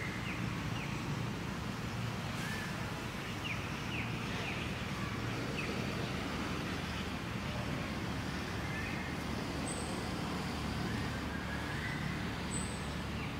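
Steady low background rumble with faint, short high chirps scattered through it, and two brief faint high tones in the second half.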